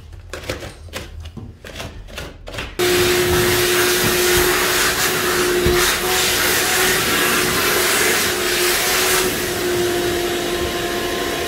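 RIDGID wet/dry shop vacuum switched on about three seconds in, then running steadily with a constant motor whine while it sucks up drywall dust and crumbs along the baseboard.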